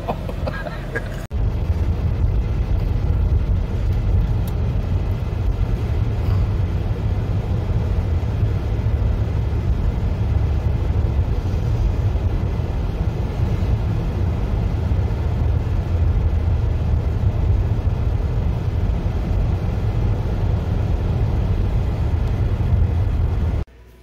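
Steady low rumble of road and engine noise inside a moving car's cabin. It cuts off suddenly near the end.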